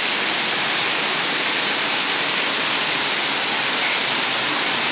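Rainwater gushing out of roof drain outlets and falling in heavy streams onto the concrete and ground below: a steady, loud roar of pouring and splashing water.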